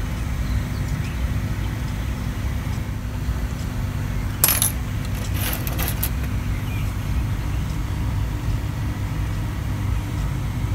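Steel treble hooks with a fresh zinc plating clink together in brief metallic clicks, a bunch about four and a half seconds in and a few more around six seconds. Under them runs a steady low hum.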